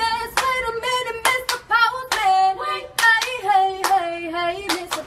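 A voice singing long held notes, dropping to a lower note about two seconds in, over quick, uneven handclaps: a song track laid over the clips.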